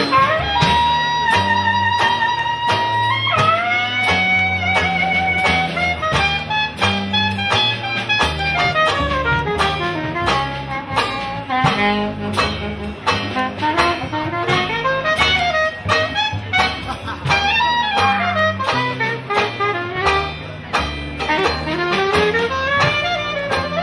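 Small-group jazz playing: a lead horn holds a long note, slides up into a wavering note about three seconds in, then plays fast runs that rise and fall, over a stepping bass line and a steady drum beat.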